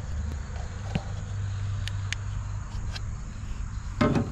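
Crickets chirping steadily in the background, with a few faint clicks and a short louder burst near the end.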